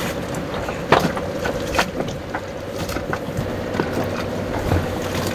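Yacht under way: a steady drone over a wash of water and air noise, with a few sharp knocks, the loudest about a second in.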